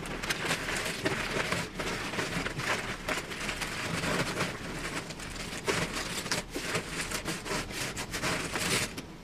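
Cardboard jigsaw puzzle pieces from a 1040-piece Trefl puzzle being broken apart and swept together by hand on a table: a dense, continuous rattle and clatter of many small pieces sliding and tumbling over one another.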